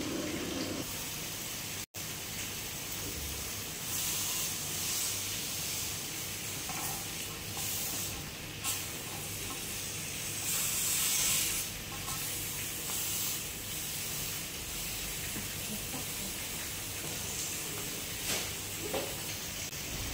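Split whole chicken sizzling in a non-stick frying pan on a gas burner: a steady hiss that swells louder a few times, most strongly about ten to eleven seconds in.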